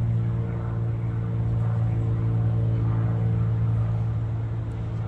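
A steady low mechanical hum, like an engine or motor running at constant speed, with several pitched tones that do not change.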